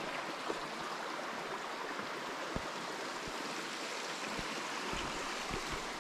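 Creek water running steadily, an even rushing hiss, with a few soft low thumps scattered through it.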